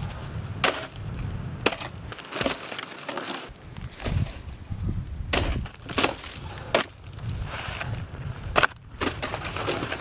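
Snow shovel digging into and tossing crusty snow: a string of sharp crunches and scrapes about a second apart, with footsteps crunching in snow.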